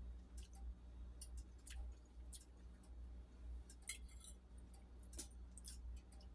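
Near silence over a low steady hum, with faint scattered clicks, about ten in all, of a fork on a plate while eating.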